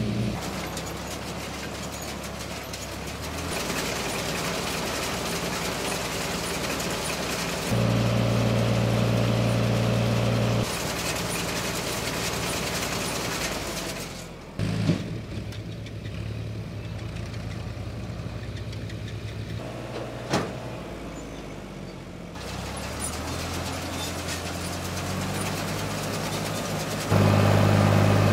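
Three-cylinder engines of classic Ford 4000 tractors running steadily while baling flax, heard in a string of cut-together shots that jump in loudness and pitch. Two short, sharp knocks stand out in the middle.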